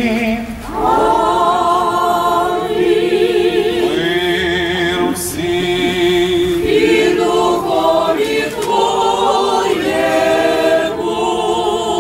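Church choir singing a cappella in the Byzantine-rite liturgy: several voices in sustained, chant-like phrases, starting about a second in.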